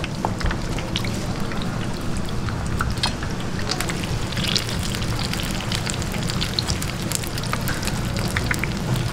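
Battered twigim fritters deep-frying in a wide pan of hot oil: a steady sizzle with many small crackles and pops. A few knife knocks on a wooden cutting board come near the start.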